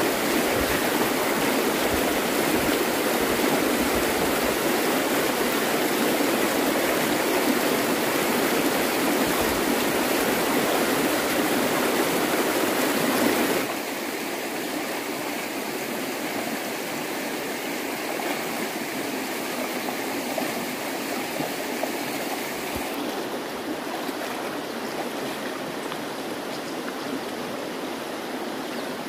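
Steady rushing of running water, an even noise with no rhythm. It drops a step in loudness about halfway through and turns duller near the end.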